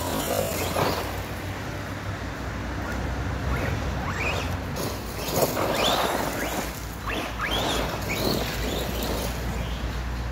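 Arrma Typhon RC buggy's electric motor whining up in several short rising bursts as it accelerates and slides on loose dirt, over a steady hiss of tyres spraying dirt. It is on a test run after a rear differential rebuild.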